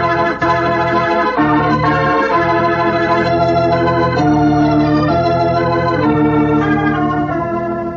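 Organ music bridge: a series of held chords that change every second or so and fade out at the end, marking a change of scene in a radio drama.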